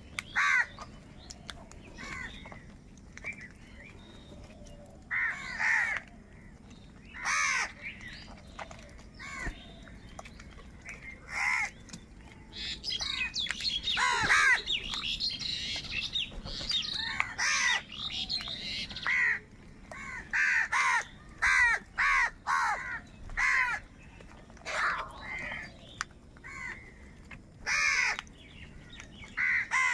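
A flock of house crows cawing: short calls at irregular intervals, several overlapping around the middle and coming more quickly in the second half.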